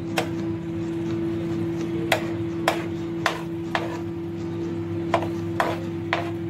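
Steel spatula knocking against a non-stick frying pan as thick mashed bhaji is pushed aside, about eight sharp knocks at uneven intervals. A steady hum runs underneath.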